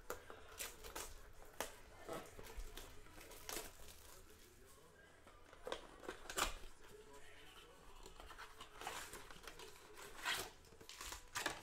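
Cardboard Panini Prizm blaster box being torn open by hand, with rustling and crinkling of its packaging: a string of irregular sharp rips.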